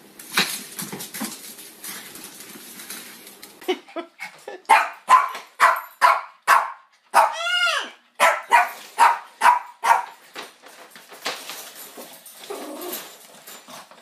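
Small dog barking over and over in short sharp barks, about two a second, with one drawn-out yelp that rises and falls in pitch midway.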